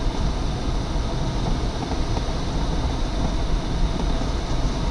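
Steady rush of airflow inside the cockpit of a DG505 two-seat glider in flight, a constant low rumble of wind over the canopy and fuselage.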